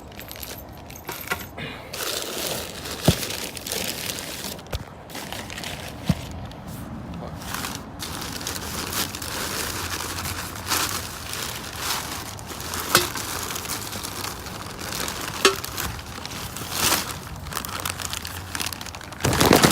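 Plastic packaging rustling and crinkling as the exhaust test pipes and their hardware are unwrapped, with a few sharp clicks.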